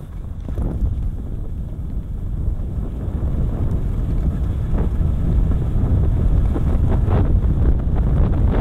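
Wind buffeting a helmet-mounted camera's microphone as a skier runs fast down a groomed slope, a low rumble that grows louder over the first few seconds as speed builds. A few short scrapes of ski edges on the snow come through near the middle and later on.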